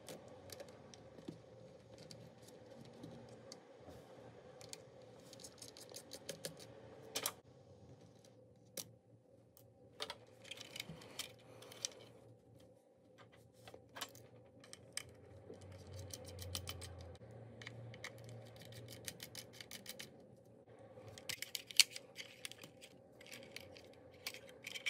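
Faint clicking and ticking of a small T5 Torx screwdriver backing out the tiny screws of a DJI Mini 4 Pro's top cover, in several short runs of rapid ticks with a few sharper single clicks; the sharpest click comes shortly before the end.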